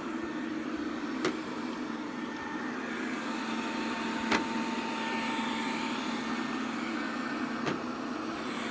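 Robit V7S Pro robot vacuum running steadily with a constant hum, with three short sharp clicks spread over a few seconds.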